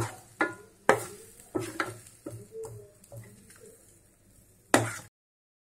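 Metal spatula scraping and knocking against a steel pan while stirring thick jaggery carrot halwa in ghee: a run of sharp scrapes and clicks that grow fewer and fainter after about three seconds, then one last knock before it cuts off suddenly.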